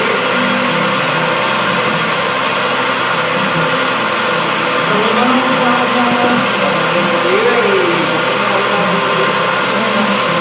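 CNC milling machine running: a steady hiss and hum, with a few tones that rise and fall as it works.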